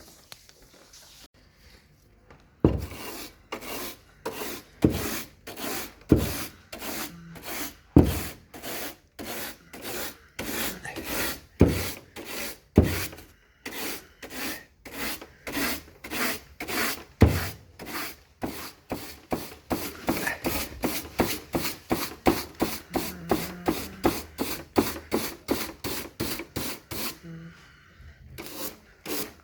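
Rhythmic scrubbing or rubbing strokes while an air-conditioner unit is being cleaned. The strokes start about three seconds in, get faster to two or three a second, and stop briefly near the end before starting again.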